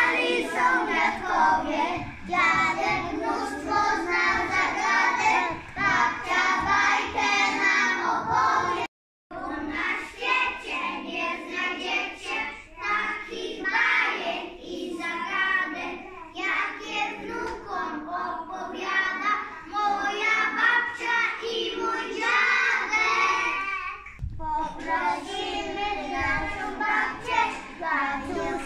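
A group of young preschool children singing a song together. The sound cuts out for a moment about nine seconds in.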